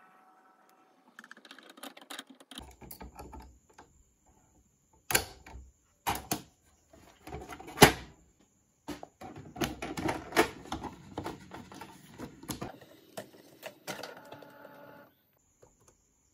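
Canon iP2770 inkjet printer's mechanism clicking and clattering, with several sharp knocks, the loudest midway, and a steady whirring near the end.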